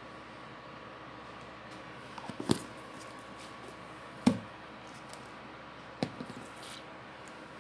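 A few small knocks and clicks of painting materials being handled and set down on a table. The loudest come about two and a half and four seconds in, with a lighter one near six seconds, over a faint steady hum.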